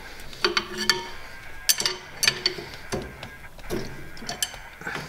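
A flat screwdriver clinking and prying against the rusted rocker arms and rocker shaft of a Fiat 600D cylinder head: an irregular run of sharp metal clicks and taps, several with a short ring.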